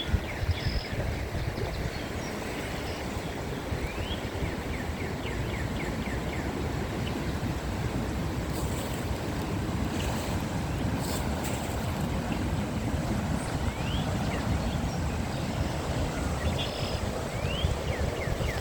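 Steady low outdoor rumble, with faint quick bird chirps scattered throughout.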